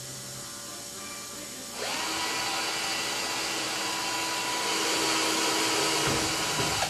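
Power drill spinning up about two seconds in and running steadily for about five seconds while piloting a hole through a wingtip nav lens via a riv nut hole, then stopping just before the end.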